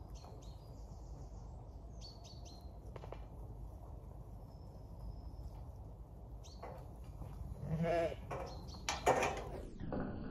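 Zwartbles sheep bleating: one call about eight seconds in and a louder one about a second later, over a low steady outdoor rumble.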